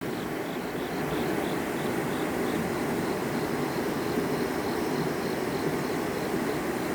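Water of a sloping slide waterfall pouring over rock into a pool, a steady rush, with a faint high chirp repeating about three times a second.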